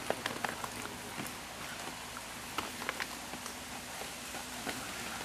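Inline skate wheels rolling on a paved path: a steady hiss with scattered light clicks and taps from the skates.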